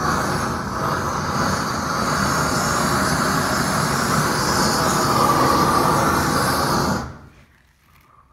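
Propane roofing torch burning steadily, heating a granulated modified-bitumen cap sheet to strip its granules. The noise drops off sharply about seven seconds in.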